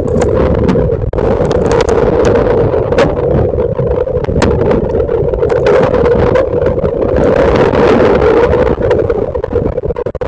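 Hurricane wind and storm-surge water captured by a trail camera's built-in microphone: a loud, continuous rushing with a steady hum running under it and scattered knocks and clicks throughout.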